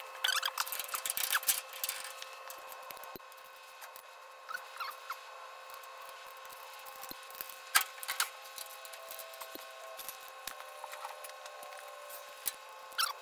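Light metallic clicks and clinks of bolts, washers and small steel parts being handled at a VW swing-axle tube: a quick cluster in the first two seconds, then scattered single clicks, over a faint steady hum.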